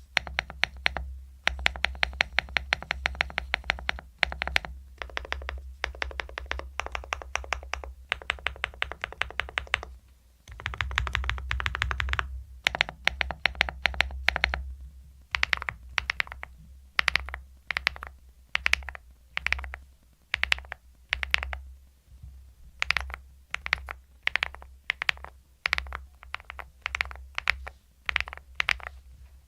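Typing on a Ticktype DP104 full-aluminum, leaf-spring-mounted, fully foamed full-size mechanical keyboard, as a typing sound test. For about the first fifteen seconds the keys go in fast continuous runs, with a brief pause about ten seconds in. After that come slower separate keystrokes and short bursts.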